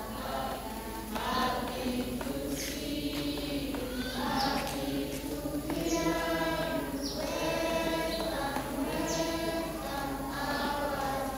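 A group of voices singing together, a church congregation holding long notes one after another.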